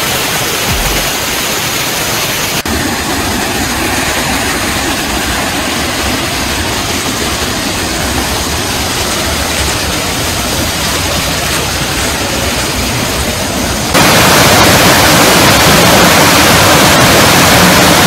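Waterfall, a steady rush of falling water with no distinct tones, which turns abruptly louder near the end.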